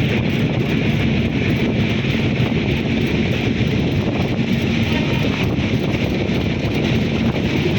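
A train running steadily, a continuous rumble with wind noise on the microphone and a faint steady hum.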